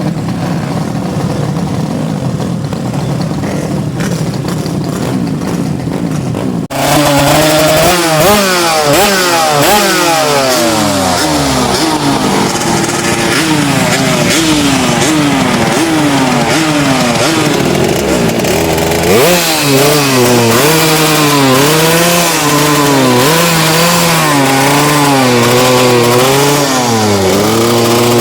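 Small-displacement racing motorcycle engine being revved, the pitch climbing and dropping again and again as the throttle is worked. About seven seconds in there is an abrupt switch from a rougher, lower engine sound to a louder, higher-revving one.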